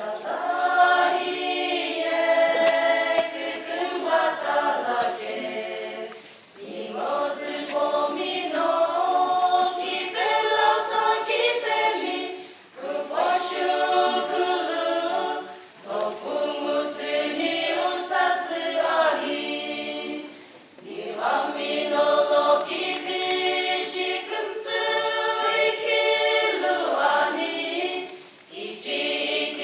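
Women's choir singing a cappella, in sung phrases of a few seconds with short breaths between them.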